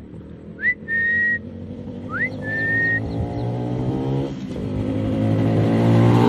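A motorcycle engine running as the bike rides closer, growing louder from about three seconds in. Before it, a whistle sounds three times at even spacing, each a quick rising note followed by a held note.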